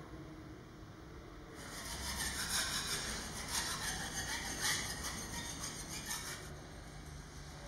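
A hand scraper rasps across a plaster wall in a run of quick strokes that starts about one and a half seconds in and stops near the end. A low room hum lies underneath.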